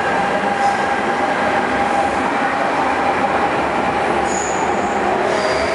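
MTR Tung Chung line A-Train electric multiple unit pulling out of the platform and running past close by: a steady loud running noise with a high whine that dips and comes back up near the end, and brief high squeals in the last second or so.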